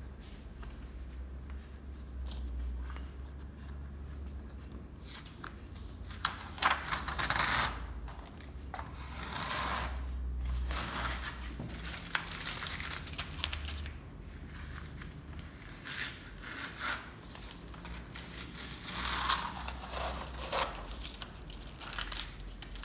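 Masking tape being peeled off the paper and crumpled in the hand, heard as several bursts of rustling a few seconds each with a few sharp clicks, over a low steady hum.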